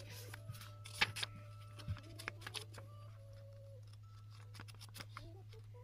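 Pages of a paper planner being turned and handled: scattered soft paper taps and rustles, the sharpest about a second in, over a steady low hum.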